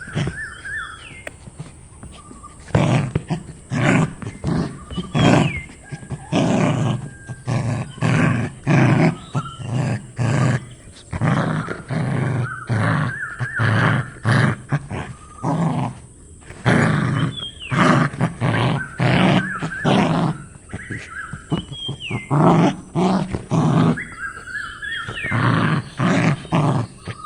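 An animal's repeated loud, low calls, one about every second, with short rising-and-falling bird chirps among them.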